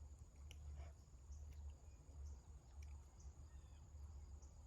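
Near silence outdoors: a faint steady insect trill, with a low rumble of wind on the microphone.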